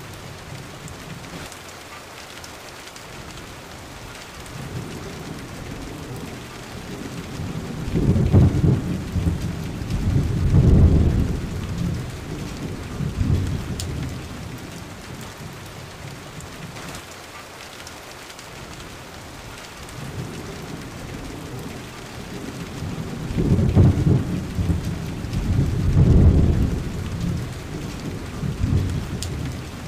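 Thunderstorm: steady heavy rain with two long rolls of low thunder, one starting about eight seconds in and another about twenty-three seconds in, each swelling twice before fading.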